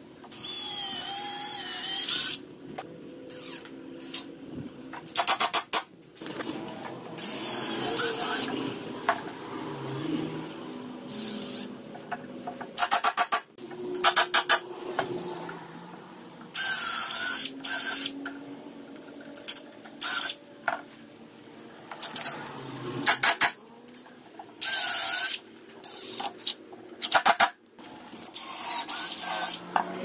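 Ryobi cordless drill running in repeated short bursts as it drills and drives screws into wooden branch perches. The motor's whine wavers in pitch, and several bursts of rapid clicking come between the runs.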